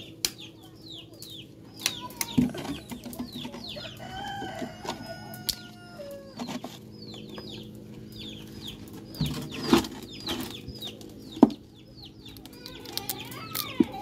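Chickens clucking and calling, with many short, high, falling calls repeating throughout. There are a few sharp knocks in between, the loudest about three-quarters of the way in.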